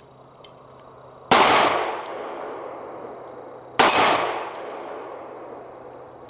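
Two shots from a Sig Sauer P320 X-Carry 9mm pistol, about two and a half seconds apart, each followed a moment later by the high ring of a hit steel target. A third shot comes right at the end.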